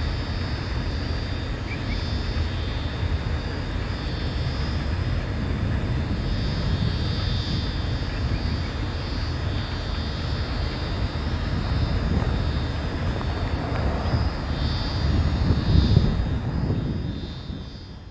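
Freight train of steel-loaded flat wagons rolling away along the track, a steady low rumble that swells briefly near the end and then fades out.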